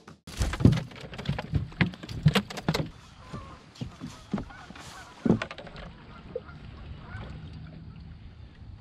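A run of irregular knocks and clatter as a smallmouth bass is landed by hand in a fishing boat. After about five seconds it settles into a faint steady rush of wind and water.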